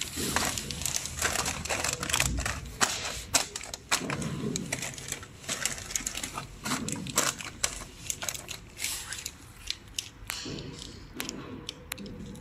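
Heat-sealed plastic-film popcorn pouches crinkling and crackling as they are handled, in quick irregular sharp clicks. A faint steady hum runs underneath.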